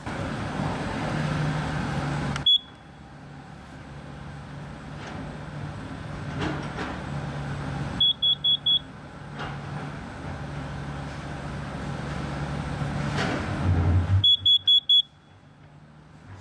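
Smoke alarm giving short, high-pitched beeps: a single beep, then two quick runs of four beeps several seconds apart, over a steady low rumble.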